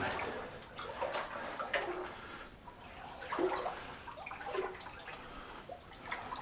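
Floodwater in a mine level sloshing and splashing in irregular surges as someone wades through water deep enough to reach high on the body.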